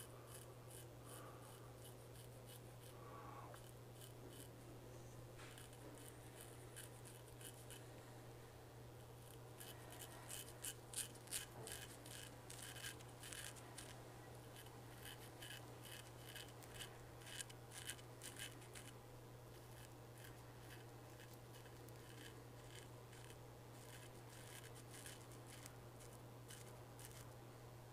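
Faint, short scraping strokes of a Kifa Swedish straight razor cutting about two weeks of stubble through shaving lather, coming thick and fast for several seconds in the middle, then sparser. A steady low hum runs beneath.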